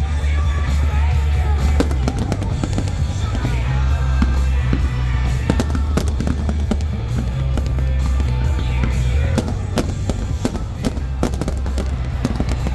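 Fireworks bursting and crackling in quick succession, mixed with loud music with a heavy bass.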